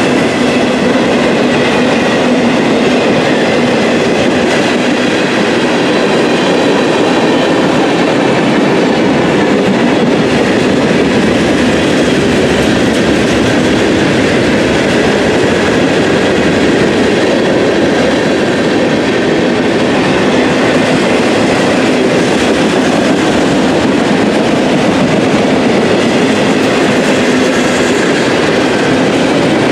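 Mixed freight train of autoracks, hoppers and tank cars rolling past at close range: a loud, steady rumble and clatter of steel wheels on the rails that never lets up.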